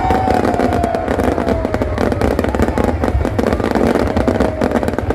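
Fireworks display crackling densely, a rapid stream of sharp pops over a low rumble, with a long falling tone in the first couple of seconds.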